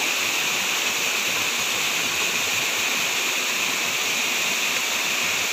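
Waterfall pouring into a rock pool: a steady, even rush of falling water that does not change.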